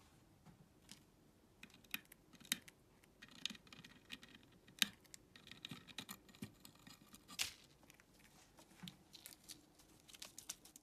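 Budgerigar pecking at food in a wooden feeder and cracking seeds with its beak: irregular light clicks and scratches, a few sharper than the rest.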